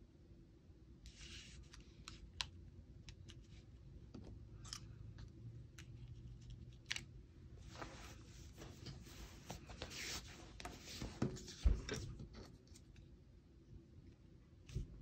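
Paper handling on a cutting mat: scattered rustling, light scraping and small taps as paper pieces and a sticker strip are moved and pressed onto a card, with a single louder knock about three-quarters of the way in.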